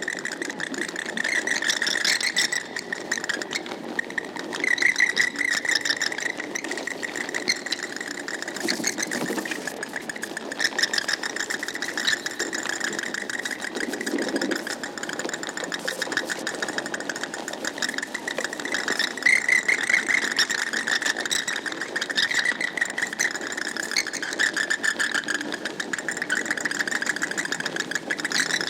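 A roost of bats chittering and squeaking, a dense, continuous mass of rapid high calls with no pause.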